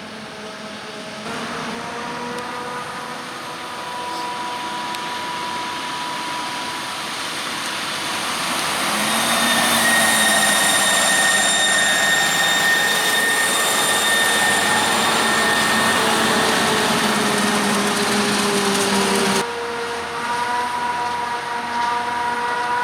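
Heavy farm machinery engines running, with steady high machine whines over the engine, growing louder as the machine comes closer. The sound changes abruptly about nineteen seconds in, with a different mix of engine tones after that.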